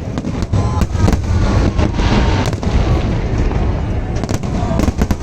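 Fireworks display: aerial shells bursting in a dense barrage. There are many sharp cracks and bangs over a continuous low rumble.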